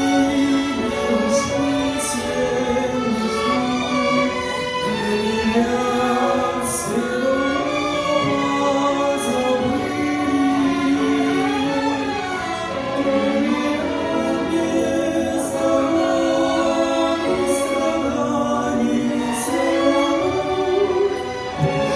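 Music: a choir singing long held notes, part of a slow song.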